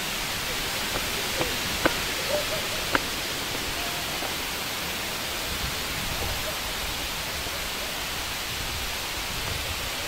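Steady rush of water from a waterfall, with a few light knocks one to three seconds in.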